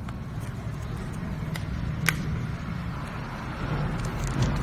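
A steady low rumble, with a few sharp light clicks of plastic magnetic alphabet letters being handled, the sharpest about two seconds in.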